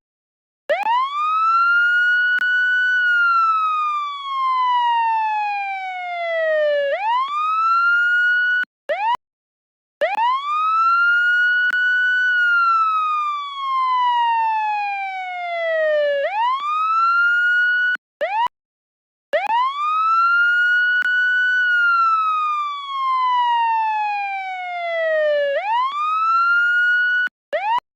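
Police siren wailing. The pitch shoots up, holds high for about two seconds, then slides slowly down over about four seconds before jumping back up, about every nine seconds. It breaks off briefly between cycles.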